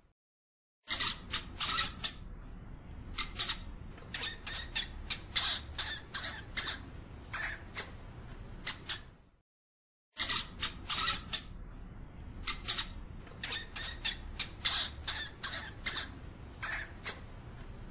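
European hamster squeaking: many short, sharp, high-pitched squeaks in irregular clusters. The squeaks stop for about a second midway, then start again.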